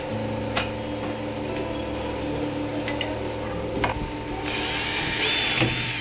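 Electric drill boring a hole through a wooden door, running for about a second and a half near the end after a few sharp clicks.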